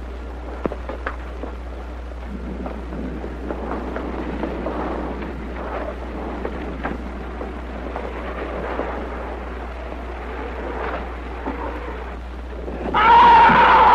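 Old film soundtrack with a steady hum and crackle, and a soft rumbling swell through the middle. Near the end a loud, high-pitched scream breaks in and falls in pitch.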